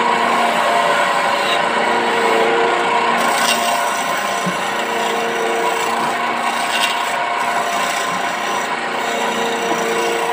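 Wood lathe running while a hand-held turning chisel cuts a spinning teak table leg: a steady scraping hiss of the tool on the wood over the electric motor's hum.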